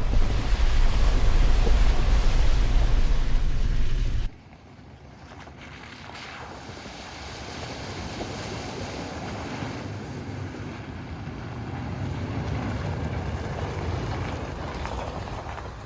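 Car driving on a rough dirt road, a heavy low rumble of engine and road noise that cuts off suddenly about four seconds in. After it comes a much quieter, steady rushing noise that slowly swells and fades.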